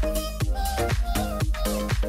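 Background electronic dance music with a steady beat, about two and a half beats a second, under sustained synth notes.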